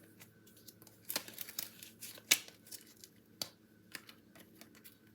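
Paper crafting handling: foam adhesive dimensionals being peeled from their backing and card stock being handled, heard as scattered rustles and small sharp clicks, the loudest about two seconds in.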